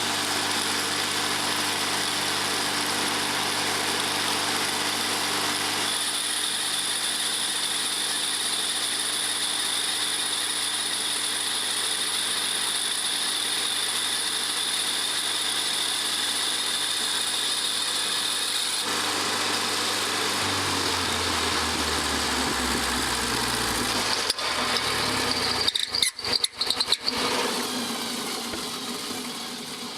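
Stump grinder's engine running steadily, then winding down, its pitch dropping step by step about two-thirds of the way in. A few seconds of irregular crackling follow, and the sound fades out near the end.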